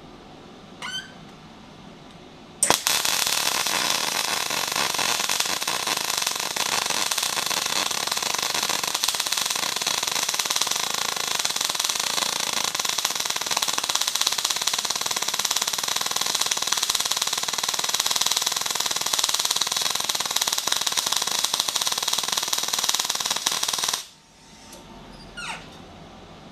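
Wire-feed welder arc striking with a sharp crack and then burning steadily with a constant frying crackle for about twenty seconds before cutting off sharply. It is running a bead on heavy steel plate at settings the welder judges too cold, with the wire speed too fast.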